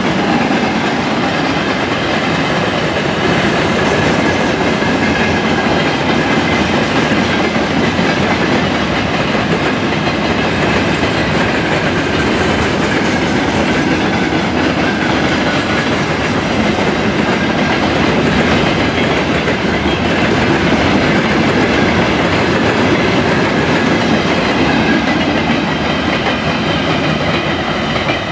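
Freight train of covered hopper wagons rolling past, its steel wheels rumbling and clattering steadily on the rails.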